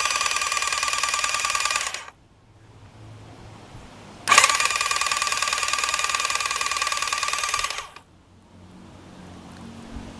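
Starter motor spinning over the rebuilt Yamaha Thunderace's inline-four engine with its spark plugs out, to pump oil round it. It comes in two steady, high-pitched bursts: the first stops about two seconds in, and the second runs from about four to eight seconds in.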